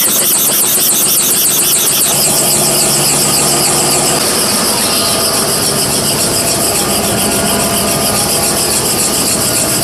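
A helicopter's engine and rotor running, loud and steady, with a fast regular pulsing in the upper range.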